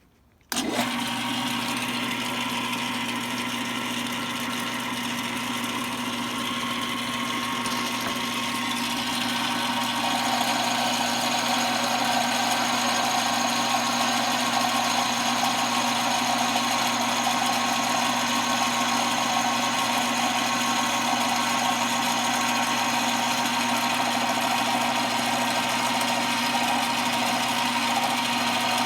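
An 8x12 mini lathe starts up suddenly and runs steadily with a constant hum and whine, turning an aluminum part for a cut with a carbide-tipped cutter. About ten seconds in the sound gets a little louder and fuller.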